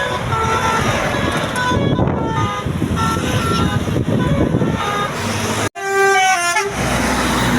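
Basuri telolet horn on a tour bus playing a tune of short notes that step up and down in pitch, over a steady noisy din of engine and surroundings. About three quarters of the way through there is a brief drop-out, followed by a quick run of notes.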